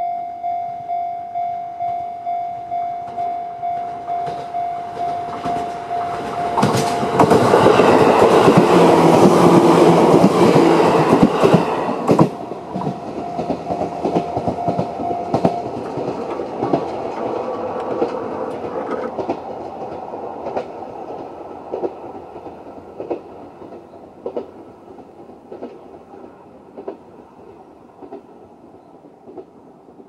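Level-crossing electronic alarm bell, the Chichibu-type tone, dinging about twice a second. From about seven seconds in, a Seibu 4000 series electric train passes loudly for about five seconds, drowning the bell. The bell stops about halfway through, and the train's wheels click over the rail joints, fading as it goes away.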